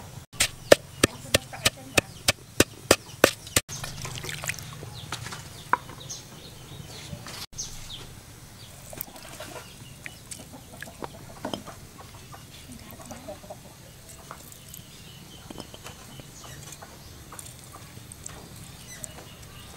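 A quick run of about ten sharp knocks, roughly three a second, in the first few seconds. Then quieter scattered handling sounds, with chickens clucking.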